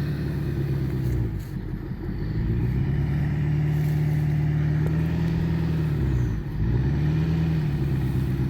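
Ford F-350's DEF-deleted 6.7 L Power Stroke V8 diesel running at raised revs. The revs dip and climb back twice, about a second and a half in and again past six seconds.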